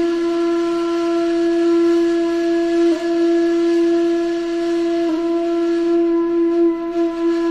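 A wind instrument holding one long, steady note, with two brief dips in pitch about three and five seconds in.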